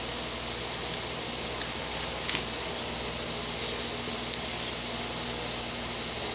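Eating sounds: a few short, sharp clicks and smacks as barbecue chicken wings are bitten and chewed, over a steady background hiss.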